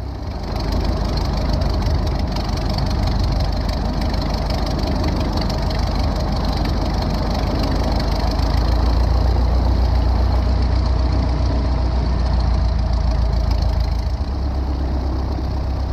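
Light aircraft's engine and propeller running steadily at low taxi power. It gets a little louder past the middle and eases off near the end.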